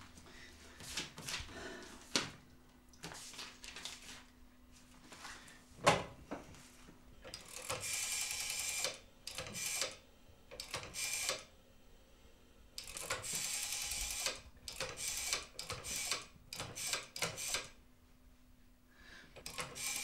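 Rotary dial of an old black desk telephone being dialled: a run of whirring bursts as the dial spins back after each digit, some long and some short, with scattered clicks and a sharp knock about six seconds in.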